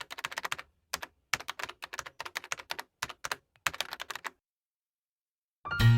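Computer keyboard typing: rapid key clicks in quick runs, stopping after about four seconds. Guitar music starts near the end.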